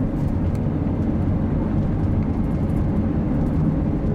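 Car driving on a freeway, heard from inside the cabin: a steady low rumble of road and engine noise.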